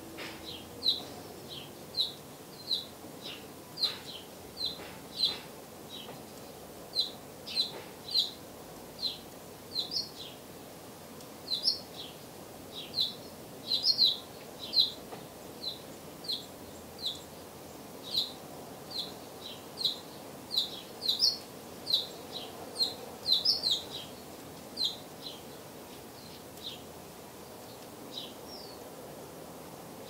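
House finch nestlings begging at the nest with short, high chirps, about one to two a second, that thin out near the end as the feeding stops.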